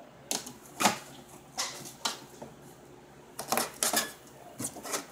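Corrugated cardboard being handled as a display shelf is fitted: a run of short, irregular scrapes and knocks as its tabs are pushed through slots and bent over.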